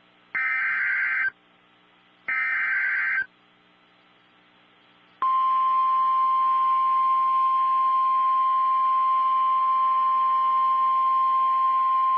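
The last two of three EAS/SAME digital header bursts, each about a second of shrill two-tone data warble with a second's pause between. After about two seconds of quiet, the steady single-pitch National Weather Service warning alarm tone starts about five seconds in and holds. The tone signals that a severe thunderstorm warning is about to be read.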